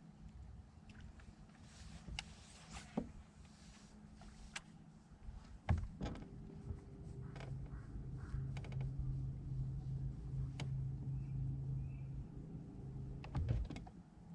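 A few sharp clicks, then a loud knock on the boat about six seconds in. After it an electric trolling motor hums steadily for about seven seconds and stops with another cluster of knocks near the end.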